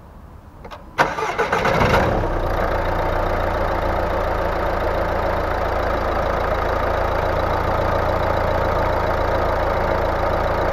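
Mercedes-Benz car engine started: the starter cranks for about a second and the engine catches, then settles into a steady idle.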